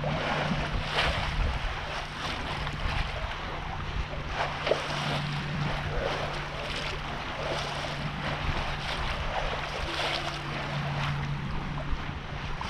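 Water rushing and splashing against a sailboat's hull while it moves under sail, with wind buffeting the microphone and a low steady hum underneath.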